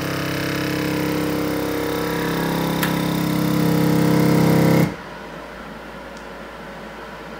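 Avid Armor USVX chamber vacuum sealer running its seal cycle: the machine's pump motor hums steadily and grows louder, then cuts off suddenly about five seconds in. A much quieter steady hiss carries on after it.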